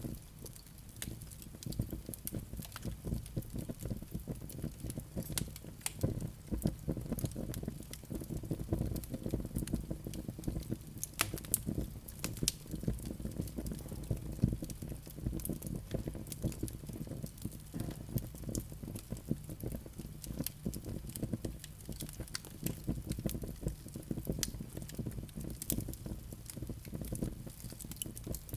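Fireplace fire of live coals and flames crackling, with frequent sharp pops and snaps over a low, steady rumble.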